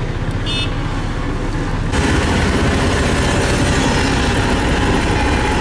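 Heavy diesel paving machinery running steadily, with a short high beep near the start; about two seconds in the sound jumps suddenly to a louder, fuller engine noise.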